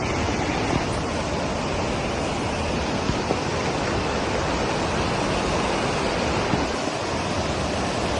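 A steady, even rushing noise with no breaks or rhythm, like surf, rushing water or wind.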